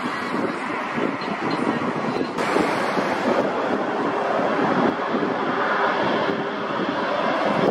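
Airport outdoor ambience: a steady rushing roar of distant jet engines mixed with wind buffeting the microphone, shifting abruptly about two seconds in.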